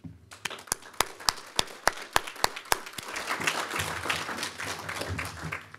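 Audience applause: a few sharp, evenly spaced claps close to the microphone, about three a second, thickening about three seconds in into dense clapping from many hands.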